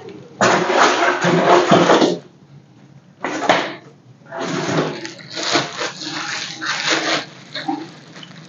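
Packaging rustling and crinkling in three bursts, the second one short, as espresso-machine accessories are unwrapped and handled.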